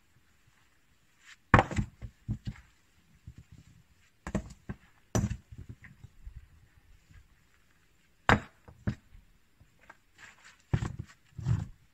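Objects being handled and knocked about inside a concrete fire pit as it is cleared by hand: irregular sharp knocks and scrapes, the loudest about a second and a half in and again about eight seconds in.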